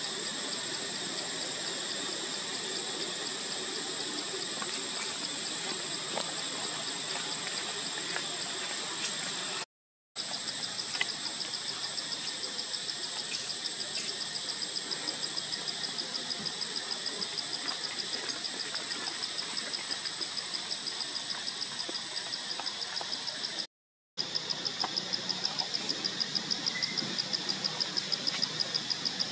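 Forest insect chorus: a steady high-pitched whine with a rapid pulsing chirp under it. The sound cuts out completely twice for a moment.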